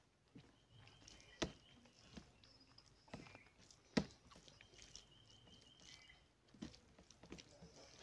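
Fingers mixing rice and fish curry on a steel plate: faint wet squishing and soft clicks, with two sharper taps, about a second and a half in and a louder one at about four seconds.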